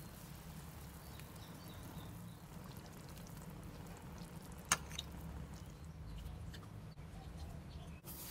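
Soup simmering quietly in a steel saucepan over a steady low hum, with one sharp metal clink of a ladle against the pot about four and a half seconds in.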